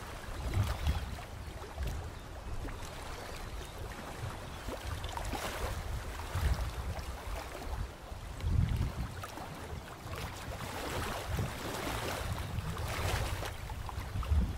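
Wind gusting on the microphone with low rumbles, and slow swells of rushing outdoor noise rising and falling twice, about halfway through and again near the end.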